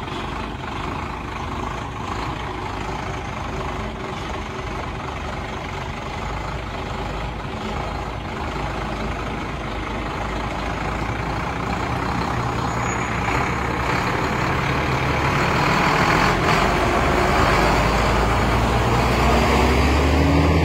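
Cargo truck engine running nearby, a steady low rumble that grows louder through the second half, with the pitch rising near the end as it revs.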